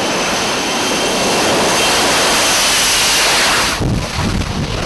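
F-35B fighter's jet engine running during its short takeoff roll, a loud rush of noise with a thin steady whine, growing slightly louder. Near the end it cuts off abruptly to a softer rush like wind.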